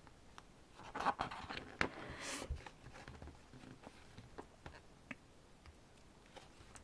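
Quiet handling of a photobook's thick glossy pages: a soft rustle and slide of paper as a page is turned over about a second or two in, with scattered light clicks and taps of fingers on the paper.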